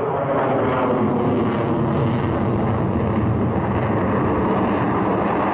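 A jet fighter's engines roaring steadily and loudly.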